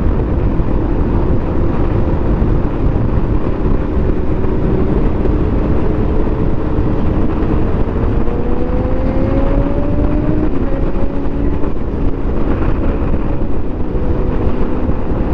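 Wind rushing over the microphone of a moving motorcycle, with the Hero Xpulse's engine running underneath. The engine note climbs slowly through the second half as the bike speeds up.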